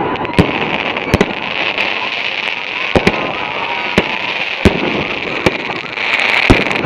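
Fireworks going off: a string of sharp bangs, about one a second, over a steady hiss, with a faint whistle near the middle.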